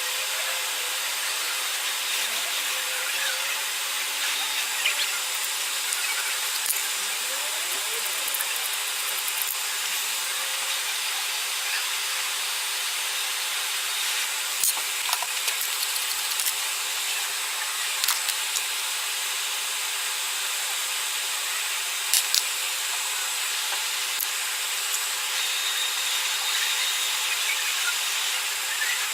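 Hot air rework station blowing a steady airy hiss, with a few small sharp clicks of tools on the phone's circuit board now and then.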